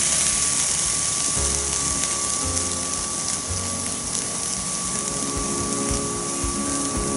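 A raw steak sizzling steadily as it sears on a hot, flaming campstove grill grate, with a steady thin whine underneath.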